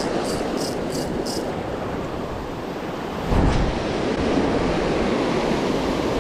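Surf washing over shoreline rocks with wind buffeting the microphone; a wave surges in loudly a little over three seconds in. For the first second and a half, a spinning reel clicks lightly, about three clicks a second.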